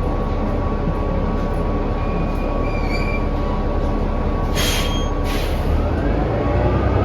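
Inside a New Flyer XD40 diesel transit bus under way: a loud, steady drivetrain and road rumble with a thin high whine over it, which the uploader finds unusually noisy. Two short hisses come about four and a half and five and a quarter seconds in, and the engine note swells near the end as the bus pulls harder.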